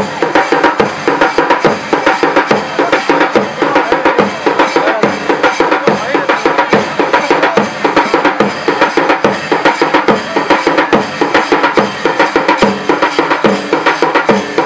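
Folk dance music driven by fast, steady drumming, the accompaniment for the Koch Rajbongshi Kamdev dance.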